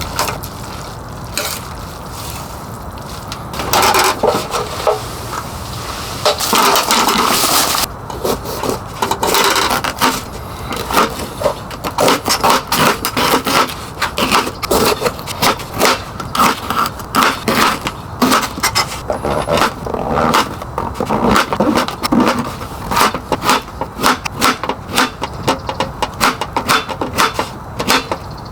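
A cooking utensil scraping against cookware in quick repeated strokes, several a second, over a steady noisy background. The strokes become dense from about eight seconds in.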